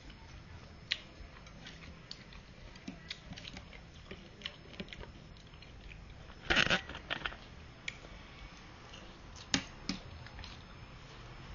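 Eating noodle soup: chewing with scattered small clicks of chopsticks or spoon, a louder half-second burst about two-thirds through, and two sharp clicks near the end.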